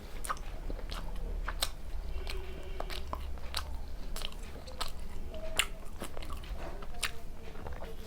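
Eating sounds: biting and chewing luchi with spicy chicken curry, a run of irregular wet mouth clicks.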